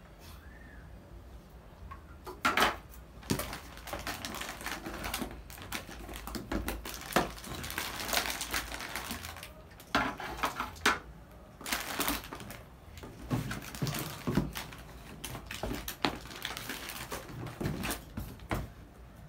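Metal cans and packaged goods being handled and set down on a table: irregular knocks and clinks of the cans, with rustling of plastic packets and cardboard in between.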